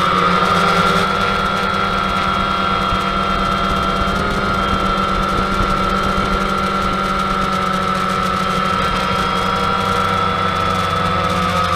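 A drone's electric motors and propellers whining steadily in flight, heard from the drone's own camera, with one strong high tone and several fainter steady tones that hold almost the same pitch.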